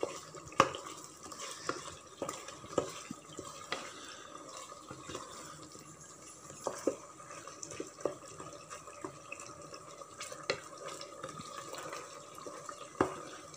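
Chicken pieces simmering and bubbling in oil and their own released juices over a high flame while being stirred with a wooden spatula, which knocks and scrapes against the pot at irregular moments.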